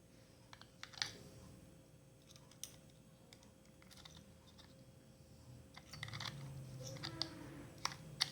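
Small sharp clicks and taps of plastic parts being handled on a digital weighing scale during a battery change: a few about a second in, one more near the middle, and a cluster near the end over a faint handling rustle.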